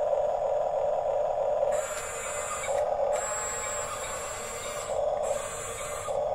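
Small electric motors and plastic gearboxes of a Huina 1554 RC bulldozer whirring. They start and stop three times, with a high whine while they run.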